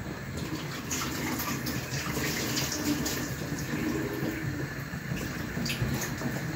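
Kitchen tap running steadily while hands are washed under it, with small splashes.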